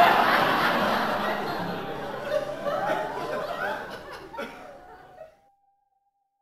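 Audience laughter after a joke's punchline, loud at first and fading out over about five seconds.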